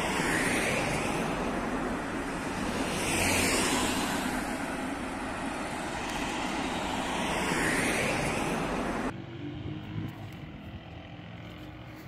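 Street traffic noise: cars passing on a road, a steady rush that swells three times as vehicles go by. About nine seconds in it cuts off abruptly to a much quieter background with a faint low hum and a few light clicks.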